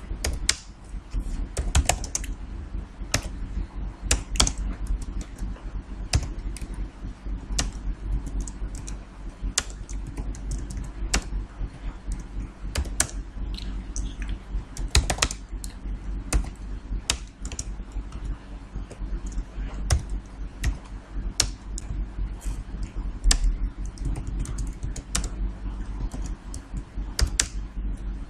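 Computer keyboard typing: irregular keystrokes, a few to several a second, with pauses between bursts, over a steady low hum.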